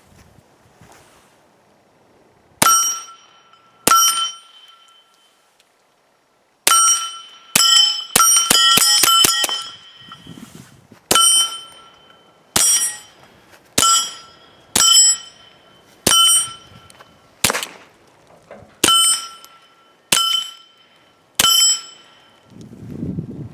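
Suppressed Volquartsen .22 LR pistol firing about twenty shots, each sharp report followed by the ringing of a struck steel target. A fast string of shots comes about seven to nine and a half seconds in. Otherwise the shots are single, roughly one every second or so, and one shot near the end of the string brings no ring.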